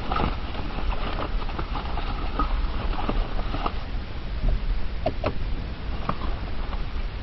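Road noise inside a moving car: a steady low rumble with scattered light clicks and rattles.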